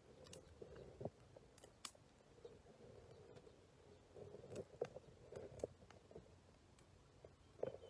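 Near silence with faint, scattered clicks and scrapes of hand work with a small knife and thin sticks. The sharpest clicks come about a second in, near the middle and near the end.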